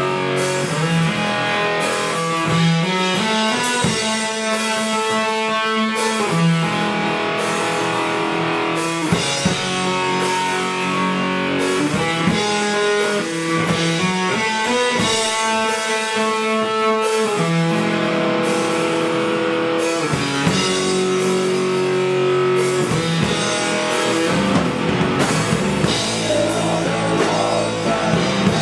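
Live doom metal played by electric guitar and drum kit: slow, sustained guitar notes changing every second or two over heavy drum and cymbal hits.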